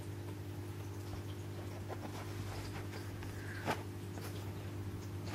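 Faint rustling and soft taps of hands handling a homemade squishy toy, with one sharper tap a little past the middle, over a steady low hum.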